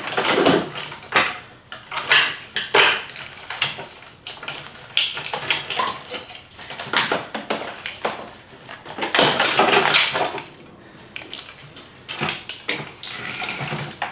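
Irregular clatter, knocks and rustling of plastic and metal car parts being handled and pulled loose during a front-end teardown.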